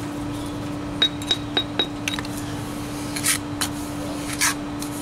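A mason's trowel clinks four times in quick succession against concrete block about a second in, then scrapes briefly twice, over a steady low hum.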